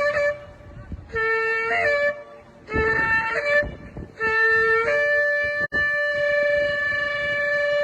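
Shofar blasts: a wavering note ends, then two short blasts of about a second each, each bending up at its end, then a long blast from about four seconds in that steps up in pitch early on and is held steady.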